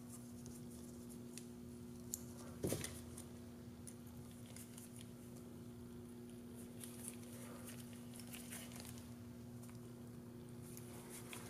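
Number 4 self-tapping sheet-metal screws being driven into a soft 3D-printed TPU part, heard as faint small clicks and scrapes of the screw and tool. There is one louder click about two and a half seconds in, all over a steady faint hum.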